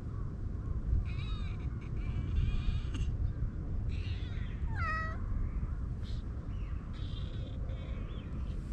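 Cat meowing up close. The clearest meow comes about five seconds in and falls in pitch, with fainter, higher calls before and after it.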